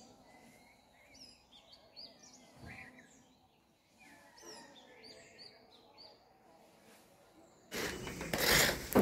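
Small birds chirping faintly: a string of short, quick calls that sweep up and down in pitch. Near the end a sudden, much louder burst of noise takes over.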